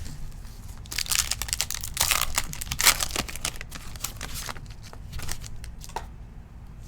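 Plastic wrapper of a trading-card pack being torn open and crinkled, the loudest rustling and tearing between about one and four and a half seconds in, followed by lighter rustles and clicks.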